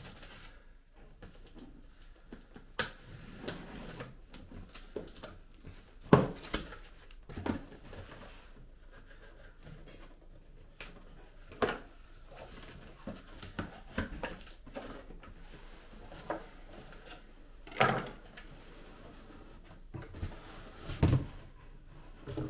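Cardboard packaging being handled and opened: irregular knocks, thumps and rustles of the box, the loudest thumps about six seconds in and again near the end.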